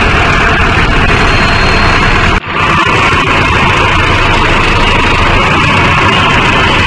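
Diesel tractor engine running steadily, loud and close, with a brief sudden drop in the sound about two and a half seconds in.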